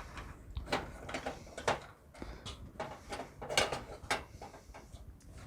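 Hard drive and its mounting pieces being handled and fitted during a PC build: irregular clicks and knocks, about five of them spread across a few seconds.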